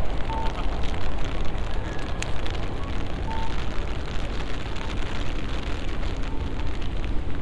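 Rain shower falling in a city street, a dense pattering of drops over a low rumble of traffic. A few short faint beeps sound now and then.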